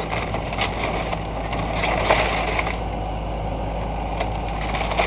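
John Deere backhoe's diesel engine running steadily as it tears at an old wooden house, the framing cracking and splintering, with a few sharp cracks, the loudest about two seconds in.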